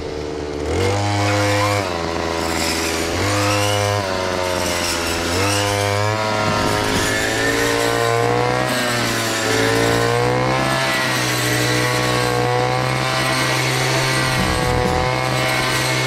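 An engine revving up three times in short spurts, then running on at a fairly steady speed that rises and falls slightly.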